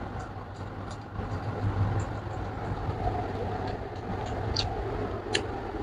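Close-up eating sounds of a person chewing a mouthful of rice and pork: short wet clicks and smacks scattered through, over a steady low background hum.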